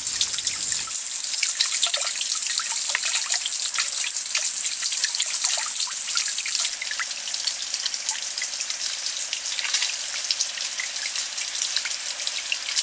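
Water trickling and dripping steadily, with many small splashy ticks.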